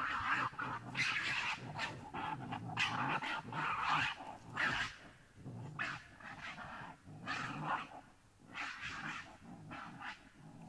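A series of harsh, breathy grunts and chatter-like calls from an unseen creature. They come thick and loud for the first few seconds, then as separate, quieter calls about a second apart. The uploader presents them as Sasquatch vocalizations.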